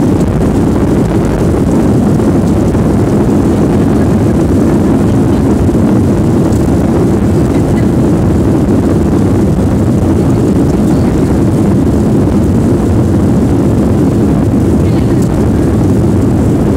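Inside the cabin of a Boeing 737 airliner on its landing rollout: a loud, steady, deep roar of the jet engines and the wheels on the runway as the aircraft slows.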